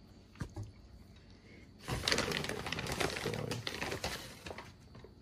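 Fingers pressing and scraping potting soil in a small plastic planter to cover a bean: a couple of light taps, then about two and a half seconds of dense scratching and crackling.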